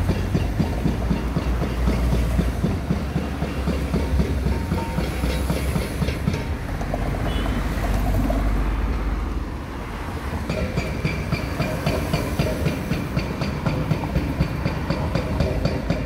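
Street traffic passing close by: a heavy low rumble that eases off about ten seconds in, then a fast, even ticking over the traffic noise.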